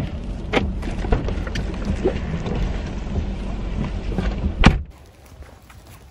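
Steady noise inside a car in the rain, with a low hum under it and a few clicks and rustles of handling. Near the end comes a loud thump, and after it the sound falls much quieter.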